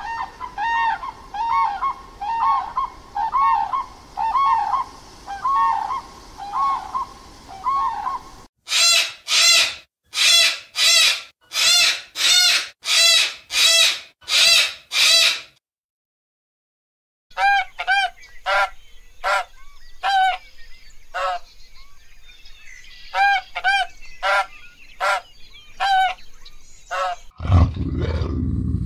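Common crane calling in a run of repeated pitched notes. After a cut, a sulphur-crested cockatoo screeches about ten times in harsh, evenly spaced calls. After a short silence comes a looser series of shorter calls, and a low rumble near the end.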